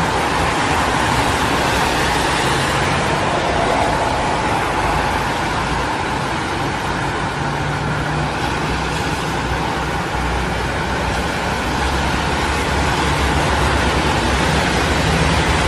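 Steady road traffic noise: vehicle engines hum low under a constant wash of traffic sound, with no distinct horn blast standing out.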